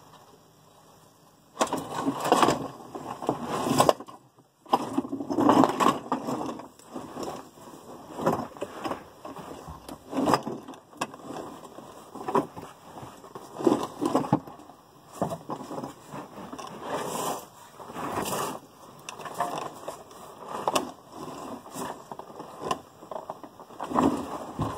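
Irregular scraping and shuffling with scattered knocks, as a person shifts about on a mechanic's creeper on a garage floor. It starts about a second and a half in, after a brief quiet, and goes on in uneven bursts.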